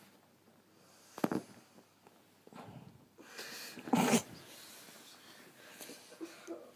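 Bedding rustling and scuffling in several short bursts as a kitten pounces and wrestles on a duvet, with the loudest bout about three to four seconds in.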